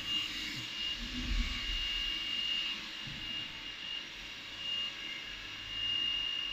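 Machine-shop background of running CNC machinery: a steady high-pitched whine over a low hum, with a few soft low thumps about a second in.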